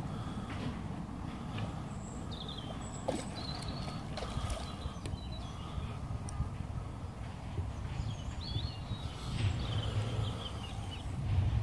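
Wind rumbling on the microphone, with small birds chirping and twittering in short bursts, twice.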